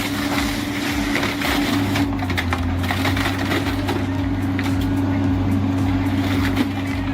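Car-dismantling excavator's engine and hydraulics running steadily under load, with scraping and many small crunching clicks as its grapple tears at a scrapped car.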